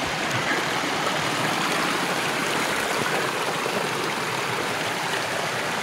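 A small mountain creek running over rocks: a steady, even rush of water.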